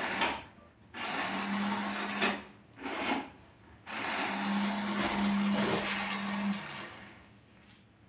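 Small electric motor and gears of a remote-control toy car whirring in several bursts, the longest about two and a half seconds, with a steady hum under the longer ones. The car is straining under the load of a large water jug strapped on top of it.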